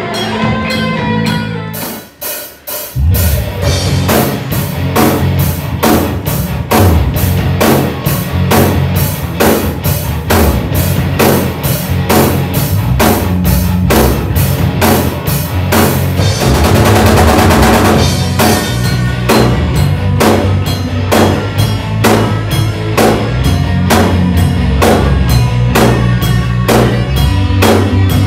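Rock band playing live in a small rehearsal room: Pearl drum kit, electric guitar and bass guitar. After a short opening and a brief drop, the full band comes in about three seconds in with a steady beat of about two drum hits a second, with a few seconds of dense cymbal crashing a little past the middle.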